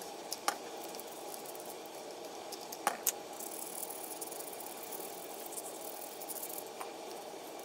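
Small brush scrubbing isopropyl alcohol over a soldered circuit board to clear flux: faint scratchy bristle sounds with a few light clicks over a steady hiss.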